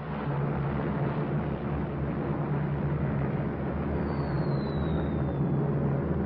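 Propeller aircraft engines droning steadily, with a faint falling whistle about four seconds in.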